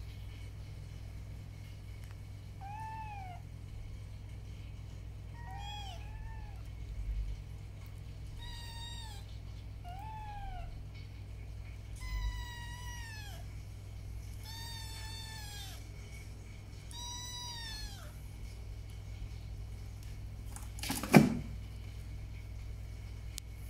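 Young kittens mewing: about eight short, high-pitched calls, each arching up and then down in pitch, the later ones longer, over a steady low hum. A single sharp, loud knock about 21 seconds in.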